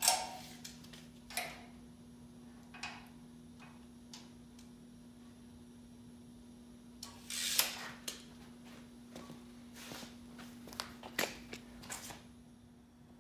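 Steel tape measure being handled around a car frame: scattered light clicks and knocks, and about seven seconds in a longer rasping rush ending in a sharp snap as the tape retracts into its case. A steady low hum sits underneath.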